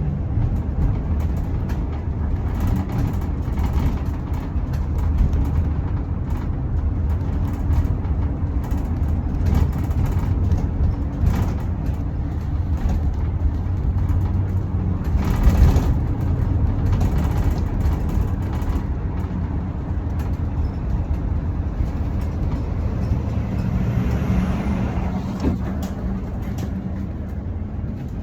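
Road traffic: vehicle engines running with a steady low rumble and vehicles passing, one louder pass about halfway through.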